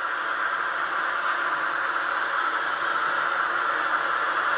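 HO scale model passenger train running on the layout: a steady rattling whir.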